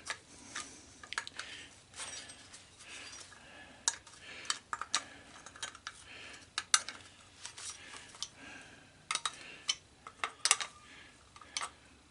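Irregular light metal clicks, taps and scrapes as a crimped sheet-metal part from a gas cook stove is bent open by hand with pliers.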